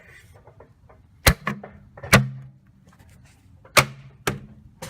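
Six sharp, irregularly spaced metallic knocks, most followed by a short low ring, as of metal striking metal during brake work on a van.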